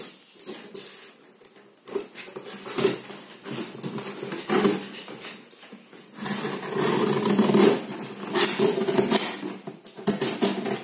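Scissors slitting packing tape along the seam of a cardboard box, with scraping and rustling of tape and cardboard in irregular strokes. The longest, loudest run of cutting comes a little past the middle.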